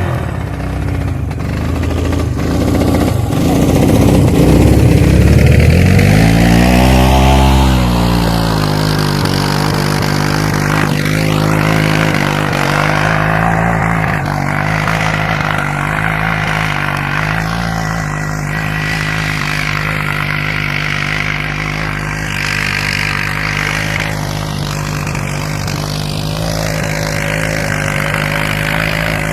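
Suzuki King Quad ATV's single-cylinder engine revving up a few seconds in and dropping back, then running at a steady speed.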